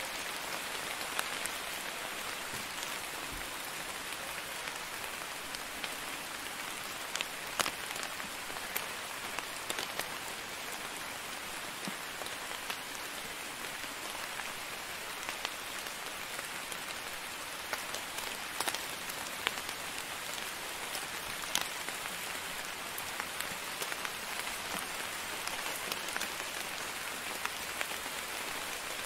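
Steady rain falling: an even hiss with scattered, sharper single drops tapping out now and then.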